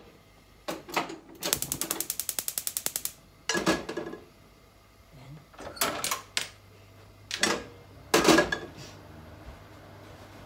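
A frying pan set down and shifted on a gas stove's metal grate, several separate clunks, the loudest near the end. Between them, about a second and a half in, a gas burner's spark igniter clicks rapidly, about ten clicks a second, for under two seconds.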